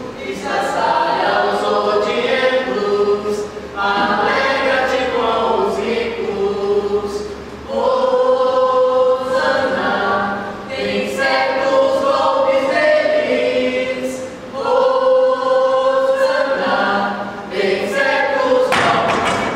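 A group of voices singing together in chorus, in several phrases with long held notes and short breaks between them.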